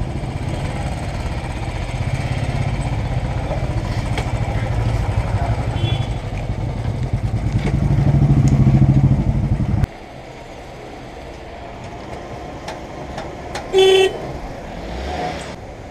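Motorcycle engines idling with a steady low rumble that swells louder for a couple of seconds and then stops abruptly about ten seconds in. Near the end a motorcycle horn gives one short toot.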